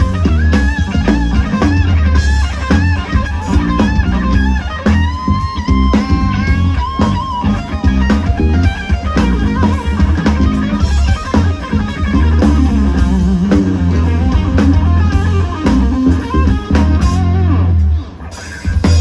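Live band music led by an electric guitar playing a melodic line with bent notes, over bass and drums. The music drops out briefly near the end before coming back in.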